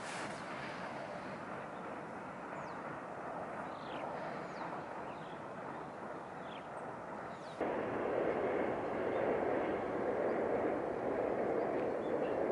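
Steady outdoor background rush, with a few short, high, falling chirps in the first half. About seven and a half seconds in it jumps suddenly louder and fuller.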